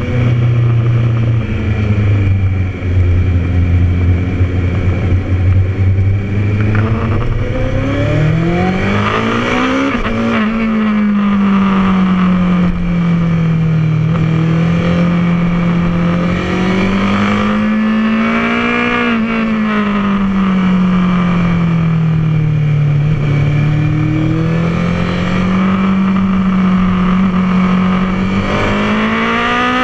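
Honda CBR1000RR sportbike's inline-four engine at track speed, heard from on the bike. The engine note holds steady for several seconds, climbs in pitch for about two seconds as the revs build, then rises and falls gently, climbing again near the end.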